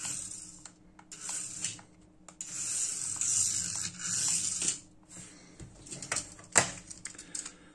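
Tiny electric motor of a 1:67-scale mini RC car (Amewi 21079 Mini Rally Sport Car) whirring in several short, high-pitched bursts as it is driven across a hard board. A single sharp click near the end, as the car is handled.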